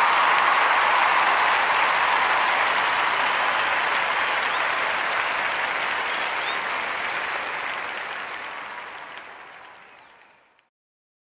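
Applause from many people clapping, dense and steady at first, then slowly fading out and ending about ten and a half seconds in.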